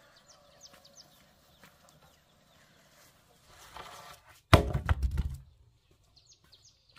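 A short, loud cluster of thuds and knocks a little past halfway through, with faint, high, short bird chirps before it and again near the end.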